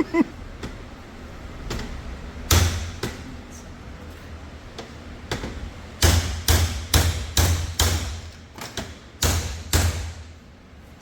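Hammer blows on a bent transmission shift selector to bend it back straight: two heavy strikes, then a quick run of about eight, then two more near the end.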